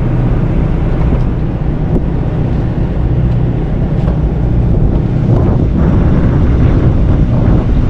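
Boat engines running at idle: a steady low rumble, with wind buffeting the microphone.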